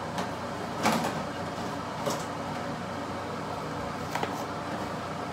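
A few short knocks and clatters of small objects being handled. The loudest comes about a second in, another near two seconds, and a quick pair around four seconds, all over a steady background hiss.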